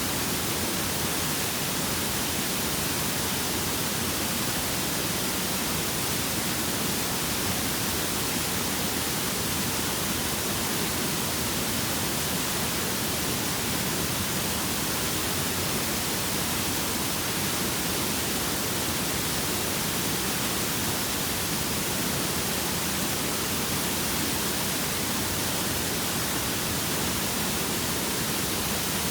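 Waterfall, its falling water making a steady, unbroken rush of hiss.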